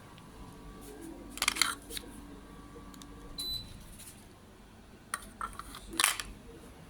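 A few sharp clicks and rustles, in two clusters, with a short high beep about halfway through, just before a faint steady hum stops.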